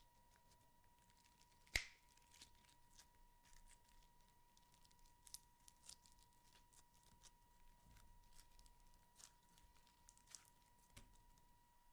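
Near silence with faint, scattered small clicks and crackles, one sharper click about two seconds in, over a faint steady high tone.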